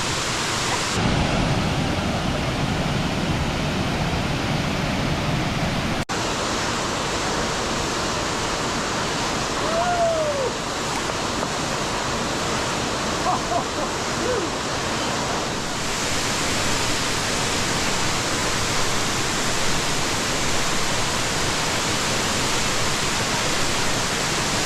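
Waterfall pouring into a pool, a loud, steady rush of water. Faint distant voices rise above it briefly once or twice.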